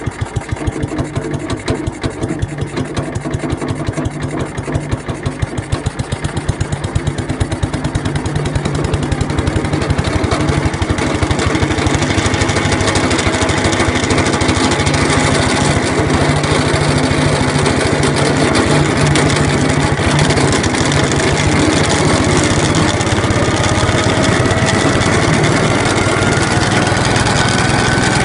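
ZID 4.5 single-cylinder engine just started and running, its separate firing pulses audible at first, then speeding up and settling into a steady run after about ten seconds. A thin rising whine comes in near the end.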